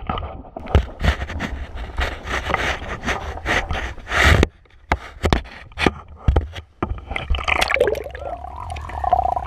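Sea water splashing and sloshing around a GoPro camera held at the surface while swimming, in a loud, irregular run of splashes with a short lull about four and a half seconds in.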